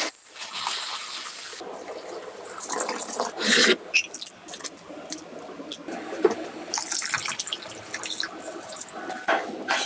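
Wet kitchen handling sounds: irregular splashes, drips and squelches of water or moist food being worked by hand or utensil, in uneven bursts.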